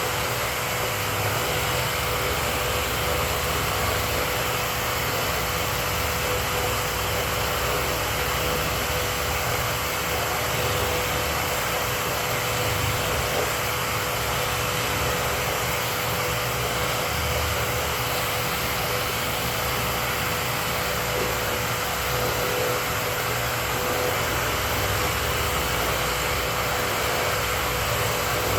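A dust-collection vacuum running steadily, a constant whine over an even rush of air.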